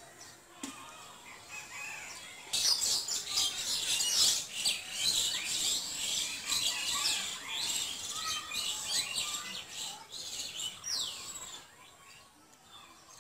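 A flock of small birds chirping and twittering in a dense, busy chorus of quick high calls. It starts suddenly a few seconds in and dies away near the end.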